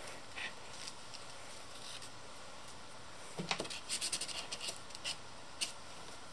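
Paper stencil cutout being handled, giving a cluster of small scratchy clicks and taps about halfway through and one more tap near the end.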